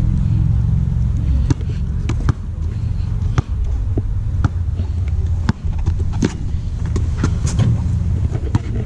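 Basketball bouncing on an outdoor court: irregular sharp bounces about once a second, over a steady low rumble.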